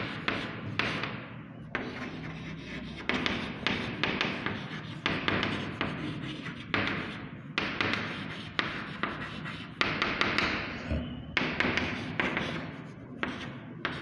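Chalk writing on a blackboard: runs of short scratching strokes with sharp taps as the chalk strikes the board, broken by brief pauses between words.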